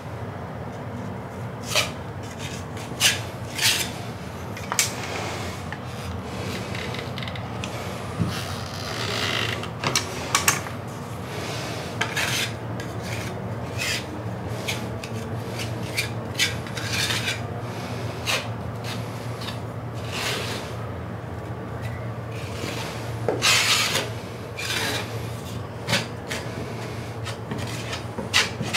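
Metal putty knife scraping across a plasterboard ceiling joint where the paper tape has lifted, in irregular repeated strokes.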